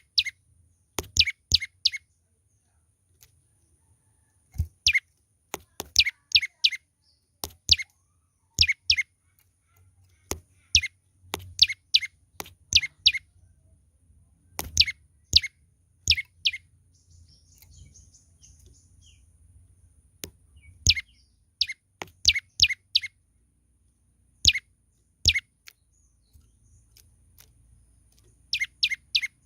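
Young prenjak lumut calling: sharp chirps, each sweeping down in pitch, given in quick bursts of two to four with short pauses between.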